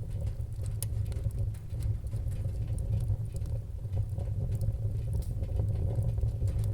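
Fire crackling: scattered sharp snaps and pops over a steady low rumble of burning flames.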